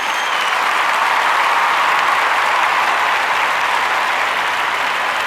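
Large audience applauding, a dense, steady clatter of many hands clapping, with a brief whistle near the start.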